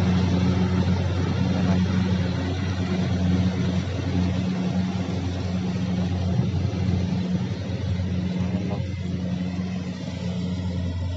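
Kubota combine harvester's diesel engine running steadily in the rice field, a constant low drone over the noise of the machine's moving parts.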